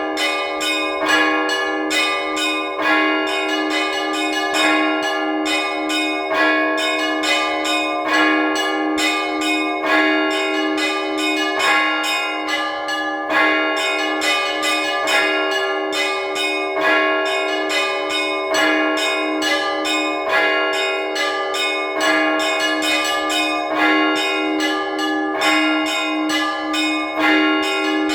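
Russian Orthodox trezvon on a set of church bells: small bells chime rapidly in a dense rhythmic pattern over a steadily repeated lower bell, all ringing together without a break.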